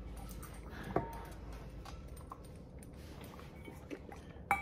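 A dog chewing a piece of broccoli out of a stainless steel bowl: small wet clicks, and a sharp knock against the bowl about a second in. Near the end the metal bowl clatters and rings briefly as it is picked up.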